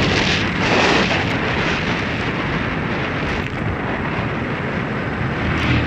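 Heavy, steady wind rush on a rider's clip-on microphone while riding a motorcycle at road speed, with the motorcycle's engine and tyre noise underneath.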